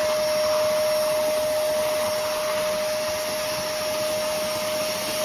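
Hoover Commercial PortaPower canister vacuum running steadily: an even rush of air with a steady whine from the motor.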